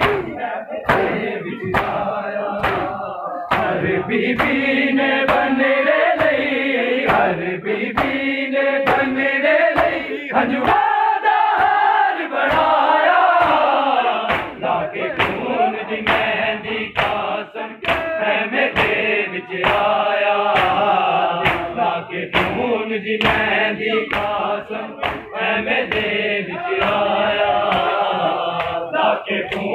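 Crowd of men chanting a Muharram nauha in unison, over a steady, evenly spaced beat of hands slapping chests in matam.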